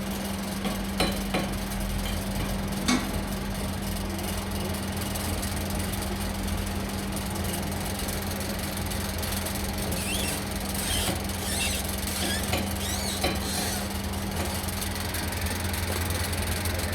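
Steady machine hum with a few sharp metallic knocks in the first three seconds, and faint high squeaks a little past the middle.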